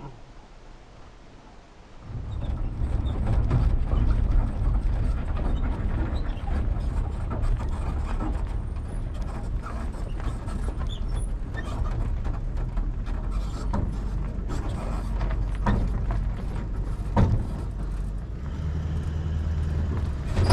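4WD driving on a rough outback gravel track, heard from a camera mounted on the outside of the vehicle. After a quiet start, a steady low rumble of tyres, engine and wind comes in about two seconds in, with frequent knocks and crackles of stones and one stronger knock near the end.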